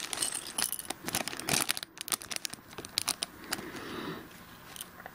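Thin clear plastic bags crinkling in the hands as they are opened, with scattered small clicks as plastic minifigure pieces are tipped out and handled. The crinkling is densest in the first two seconds and thins out after.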